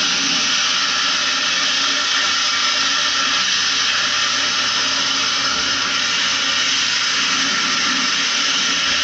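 Pressure washer spray gun jetting water onto a window-type air conditioner's chassis and coils: a steady, loud hiss of spray.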